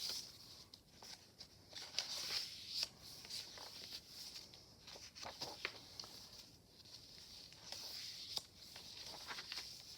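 Paper pages and cards of a handmade journal rustling and being turned, with scattered soft taps and crinkles.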